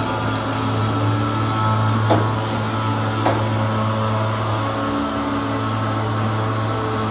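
Heavy diesel engines of a dump truck and excavator running at a steady idle, a low even hum. Two short sharp clicks about two seconds in and again a second later.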